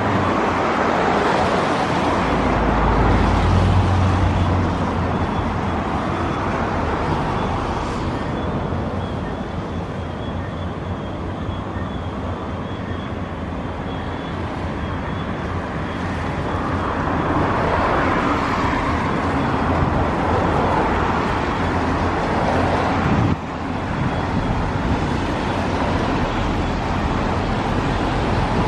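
Jet airliner engines running at taxi power: a steady roar with a faint high whine, swelling near the start and again a little past the middle.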